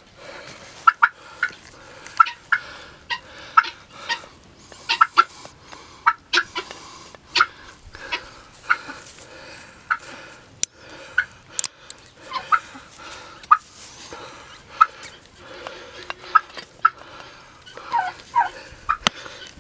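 Short animal calls repeated about once or twice a second, with a few sharp snaps of horse hoof nippers cutting a pig's hoof.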